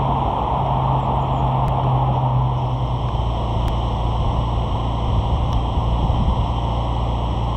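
Volvo truck's diesel engine idling, a steady low hum.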